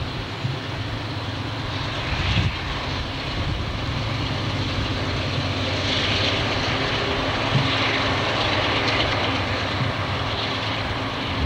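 CSX diesel-electric freight locomotives working a train of hopper cars, their engines droning steadily and growing slowly louder.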